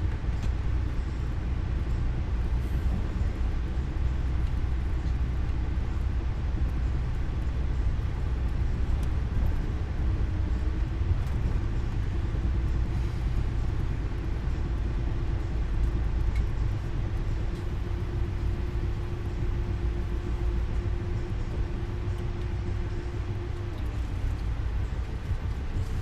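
Steady low rumble inside a moving train's passenger cabin. A faint hum holding one pitch comes in about ten seconds in and fades out a couple of seconds before the end.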